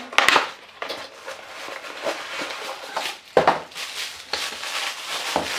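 Toy packaging being opened by hand: plastic and cardboard rustling and crinkling, broken by sharp clicks and snaps, the loudest shortly after the start and about three and a half seconds in.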